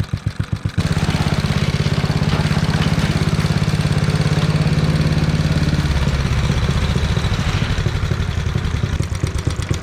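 Locke Triplex reel mower's engine jumps from a lumpy idle to a fast, steady run about a second in. From around the middle it slows, settling back to a pulsing idle near the end.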